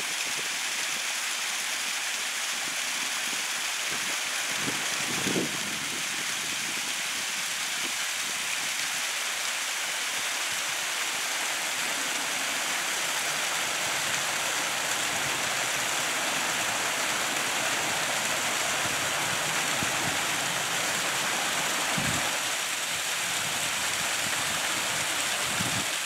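Small waterfall splashing and trickling down rock ledges: a steady hiss of falling water, with a couple of brief low thumps.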